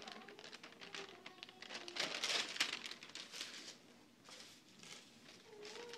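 Sheets of drawing paper rustling and crinkling as they are handled and shuffled, loudest about two seconds in.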